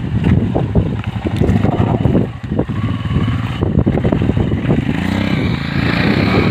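Motorcycle engine running over rough off-road ground, with frequent knocks and jolts; about five seconds in the engine revs up and falls back.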